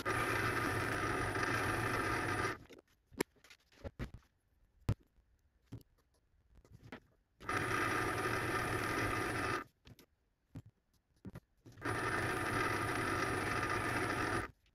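Paulimot PM190-V variable-speed mini lathe running in three spells of a few seconds each, a steady hum with a thin high whine, while boring a 16 mm bearing seat in a part held in a four-jaw chuck. Between the spells come scattered sharp clicks and light knocks.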